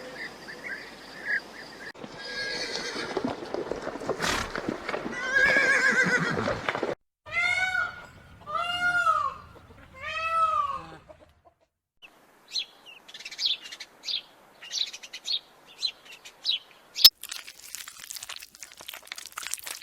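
A string of farm animal calls with abrupt cuts between them: harsh calls first, then three short pitched calls in a row that rise and fall, then a run of quick high chirps.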